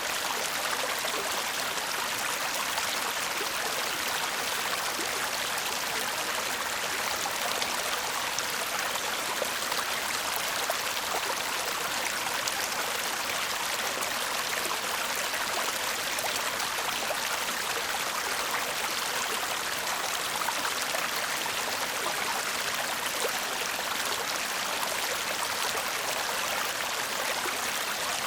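A shallow stream babbling steadily over stones, a continuous hiss of running water flecked with small splashes and trickles.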